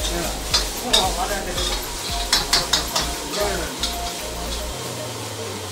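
Shredded vegetables sizzling as they are stir-fried in woks, with the ladle scraping and clanking against the wok in quick, irregular strokes. The strokes come thickest in the first three seconds and thin out near the end.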